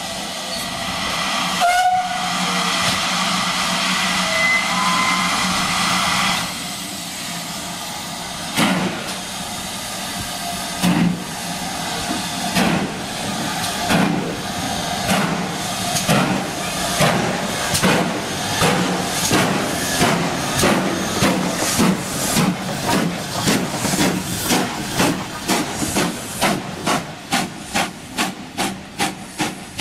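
Steam locomotive starting away: a loud rush of steam for a few seconds, then exhaust beats that begin about two seconds apart and quicken steadily to two or three a second as it gathers speed.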